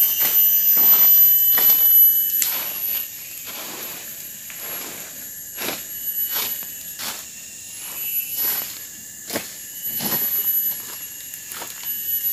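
Irregular rustling and scraping of dry leaves and twigs as a long stick pokes and rakes a smouldering leaf fire, along with footsteps on the leaf litter, busiest in the first two seconds. A steady high insect drone runs underneath.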